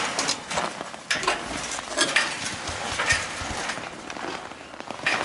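Footsteps crunching on hard-frozen snow, a sharp crunch roughly once a second.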